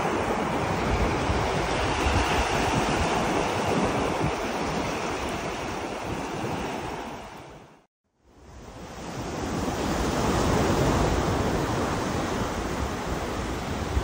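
Ocean surf breaking and washing up the beach in a steady rush, with wind rumbling on the microphone. About eight seconds in the sound fades out to silence for a moment, then fades back in.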